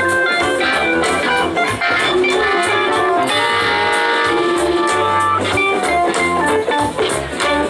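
Live blues-rock band playing, with electric guitar out front over drums and the rest of the band.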